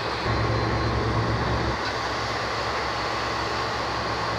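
Steady low engine rumble under a hiss of wind and sea, heard from the deck of a boat at sea. The rumble is strongest in the first couple of seconds.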